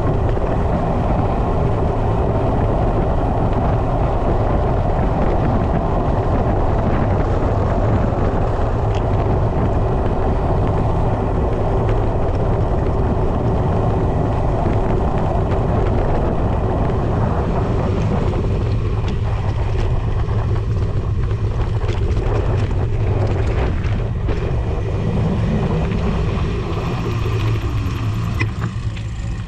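Wind buffeting the microphone and mountain bike tyres rumbling over a dirt track on a descent, a steady loud rush. About two-thirds through the rush thins, with scattered clicks and rattles.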